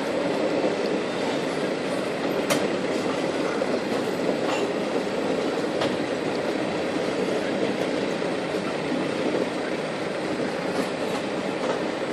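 Freight train cars rolling past on the tracks: a steady rumble with scattered sharp clicks from the wheels.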